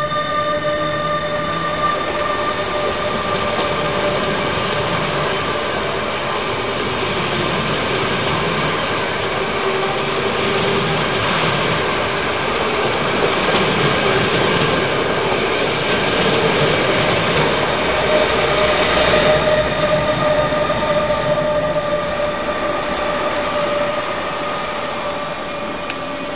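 Benelux intercity train of NS blue-and-yellow coaches rolling past the platform: a steady noise of wheels on rail with a steady whine through it, fading as the last coaches clear near the end.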